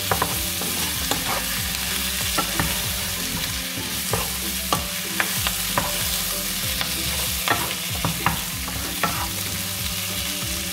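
Chicken drumsticks with chopped onion, tomato and curry leaves sizzling in hot oil in a nonstick pan, while a wooden spatula stirs them, knocking and scraping against the pan at irregular intervals.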